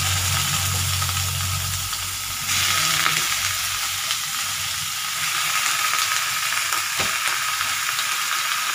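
Raw chicken pieces sizzling in hot oil in a wok with sautéed ginger, garlic and onion, just added to the pan. The sizzle gets louder about two and a half seconds in as more chicken goes in.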